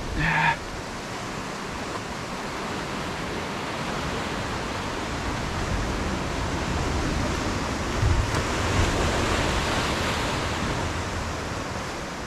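Steady wash of ocean surf against a rocky shore. There is a brief sharp sound about a third of a second in, and a low rush swells up around eight seconds.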